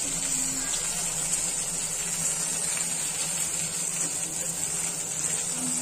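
Bombil (Bombay duck) fish shallow-frying in hot oil in a pan: a steady sizzle, with a few light scrapes of a steel spatula against the pan as the fried fish are lifted.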